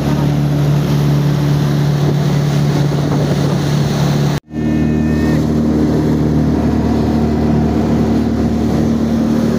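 Jet ski engine running steadily at speed, with water rushing and wind on the microphone. The sound cuts out for an instant about four and a half seconds in, and the engine note is higher after it.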